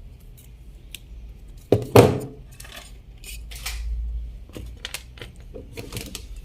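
Metal parts and tools of an opened ceiling fan being handled: scattered clinks and knocks, with one louder clank about two seconds in and some scraping between.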